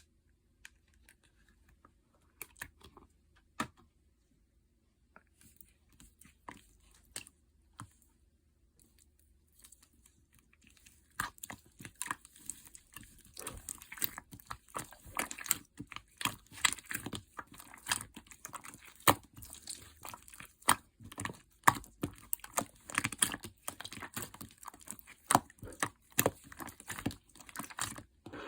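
Light-yellow clear slime being pressed and stretched by hand, giving sticky clicks and pops. The clicks are scattered at first, then come thick and fast from about eleven seconds in.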